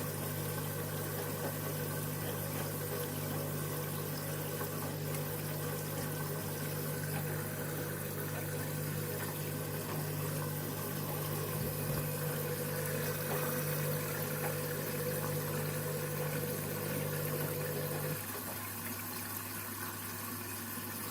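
Candy washing machine's drum motor humming steadily as the drum turns while the KG Detector senses the load size. The motor tone cuts out about 18 seconds in.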